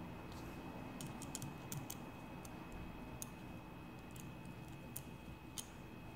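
Light, irregular clicks and taps of small metal parts being handled and fitted together: a ball bearing, bolt and nut, with a metal tube pressed against them.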